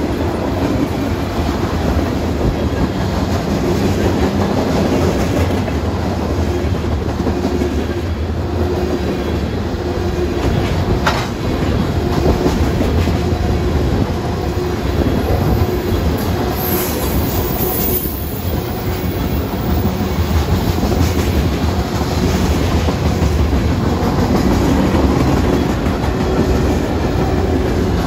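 Freight train cars (tank cars, then boxcars) rolling steadily past up close: a continuous rumble of steel wheels on rail with clickety-clack. A brief high-pitched wheel squeal comes a little past halfway.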